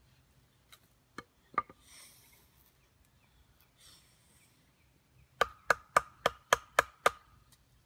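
Wooden baton knocking down onto a knife to cut a V notch into a stick on a stump. Two single knocks early on, then a quick run of about eight knocks near the end, each with a short ring.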